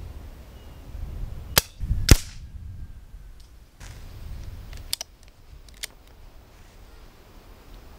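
A .177 Brocock Compatto Sniper HR pre-charged pneumatic air rifle being fired: two sharp cracks about half a second apart, the second the loudest, then fainter clicks about three seconds later.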